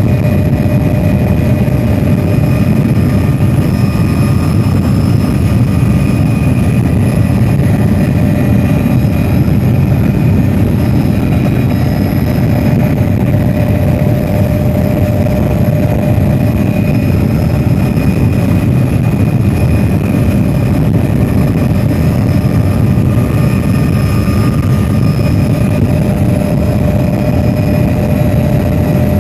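Helicopter in steady flight heard from inside the cabin: a loud, even rumble of engine and rotor with several constant high-pitched whines above it.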